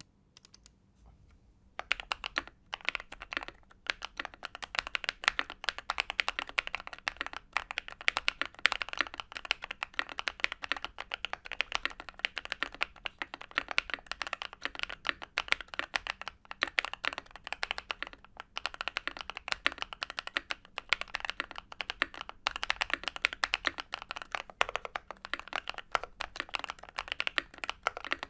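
Typing sound test on a Monsgeek M3 aluminium TKL mechanical keyboard fitted with factory-lubed Akko CS Piano linear switches and thick PBT keycaps: a few scattered keystrokes, then continuous fast typing from about two seconds in.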